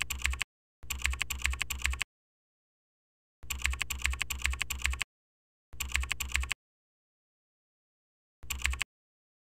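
Computer keyboard typing: five short runs of quick key clicks, separated by pauses of total silence.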